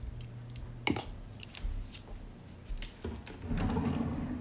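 Light clicks and taps of a plastic measuring scoop against a mixing bowl and powder tub as powder is tipped in, followed by a louder handling noise in the last second.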